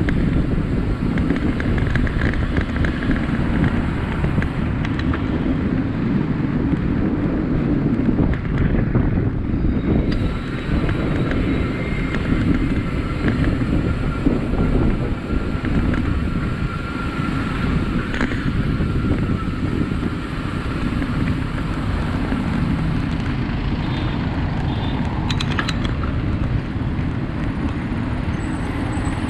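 Steady road traffic passing close by, with motorcycles and jeepneys among it, heard from a moving bicycle with wind rumbling on the microphone.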